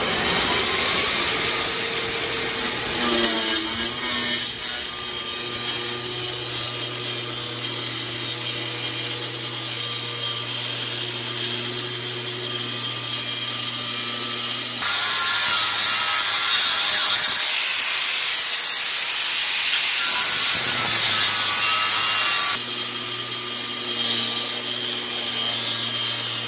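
A short rising tone at the start, then a Festool 18V diamond cutter and its dust extractor running with a steady hum. In the middle the blade bites into the sheet, with a much louder, harsh grinding that lasts about eight seconds and stops abruptly, and the steady hum returns.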